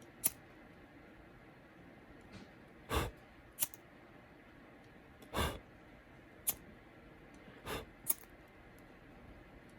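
Several faint clicks and short scratchy strikes spaced a second or two apart: a handheld lighter being flicked and handled while singeing the coating off thin aux-cord wires.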